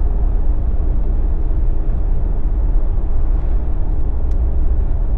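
Steady low rumble of a Jeep driving along the road on BFGoodrich KO3 all-terrain tyres: tyre and engine noise at cruising speed, even throughout.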